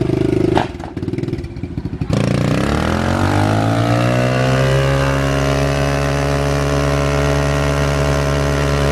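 Kawasaki KLX110 pit bike's small single-cylinder four-stroke engine revving while the rear tyre spins on a wooden trailer deck in a smoky burnout. About two seconds in, the engine's pitch climbs over a few seconds, then holds at a high, steady pitch.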